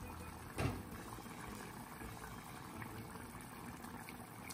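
Crab curry gravy bubbling at a rolling boil in a clay pot: a steady bubbling. A single thump sounds about half a second in.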